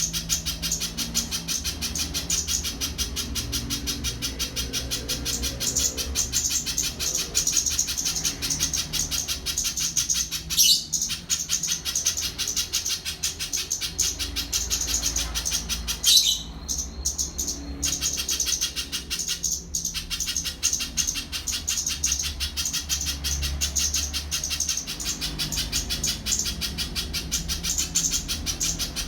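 Spiderhunter calling in a fast, unbroken run of high, sharp chips, with a few short pauses about a third and two thirds of the way through.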